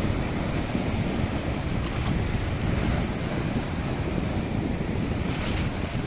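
Sea surf: small waves breaking and foam washing over the shallows in a continuous rushing hiss, swelling a little about halfway through and again near the end. Wind buffets the microphone underneath.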